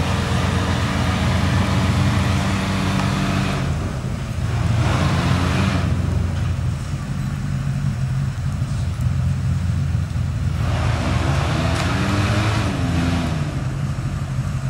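Off-road truck's engine running steadily, revved up twice as it climbs: once about four seconds in and again near eleven seconds, the pitch rising and falling each time.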